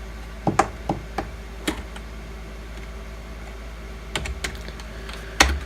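Computer keyboard keys pressed one at a time, a handful of separate clicks with gaps between them, a few in the first two seconds and more near the end, over a steady low hum.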